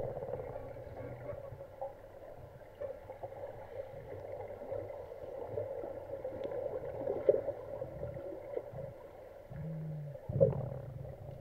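Muffled underwater sound of a deep diving pool, heard by a submerged camera in its housing: a steady hum over a low rumble, with faint scattered knocks and bubbling, and a louder swell about ten seconds in.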